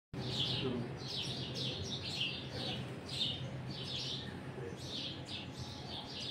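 Birds chirping: a steady run of short, high, falling chirps, about two a second, over a low steady hum.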